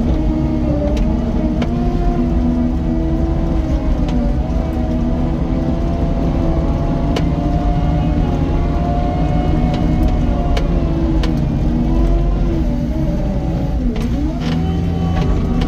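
Cat 255 compact track loader's diesel engine running hard under load, its pitch wavering and sagging briefly near the end as it pulls down. Scattered sharp clicks and knocks come through over the engine.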